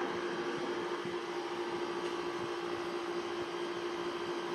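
A steady mechanical hum: one constant tone over an even hiss, with no change in pitch or level.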